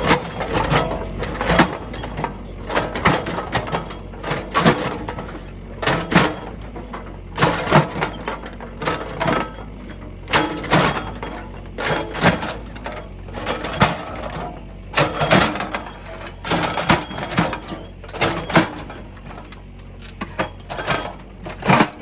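Mini excavator's engine running steadily while its bucket smashes a lawn mower: a long run of irregular crashes and crunches as the mower breaks apart.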